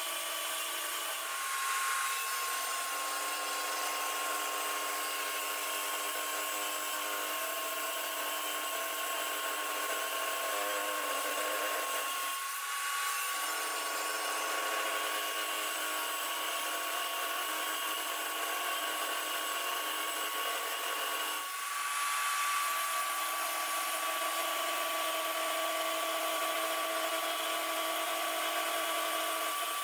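Table saw running with a steady high whine as its blade rips thin strips of wood along the fence. The sound dips and changes briefly about 2, 12 and 21 seconds in.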